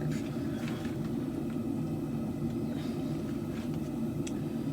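A forge running with a steady, even low rumble.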